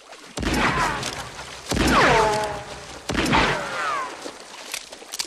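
Three loud gunshots about a second and a half apart in a gunfight, each followed by a man's shout that falls in pitch.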